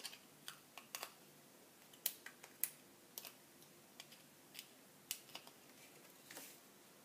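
Faint, irregular clicks and crinkles of fingers peeling the paper backings off foam adhesive dimensionals stuck to a cardstock circle.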